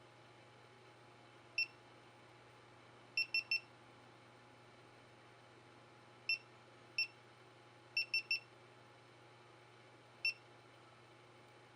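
Short, identical electronic beeps from the GoPro Hero 4 camera's beeper: a single beep, a quick run of three, two single beeps, another quick run of three, and one more single beep.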